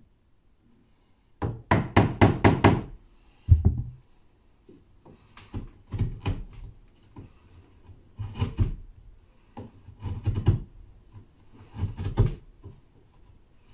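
Wood chisel cutting into a pine door rail: a quick run of about six sharp knocks, a single heavy thump, then shorter bursts of chisel strokes every couple of seconds.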